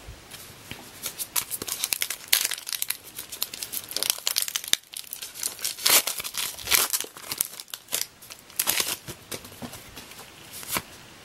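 Plastic wrapper of a 2015 Topps Heritage High Numbers baseball card pack being torn open and crinkled by hand, a run of irregular crackles and rustles.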